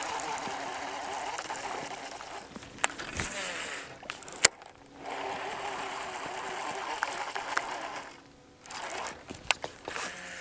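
Fishing reel being cranked in steady whirring stretches, broken twice by a pause with a brief hiss and a few sharp clicks, the loudest about four and a half seconds in.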